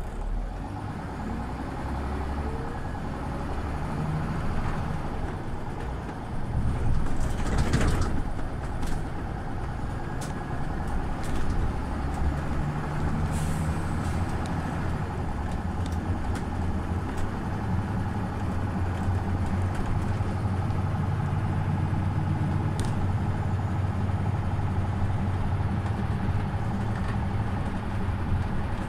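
Scania OmniLink CL94UB city bus's 9-litre five-cylinder engine running under way. A short hiss of air about seven seconds in, and the engine note shifts before settling into a steady run for the second half.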